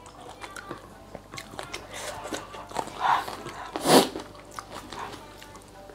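A blue swimmer crab being cracked and pulled apart by hand: a string of small shell crackles and clicks, with a louder noise about four seconds in.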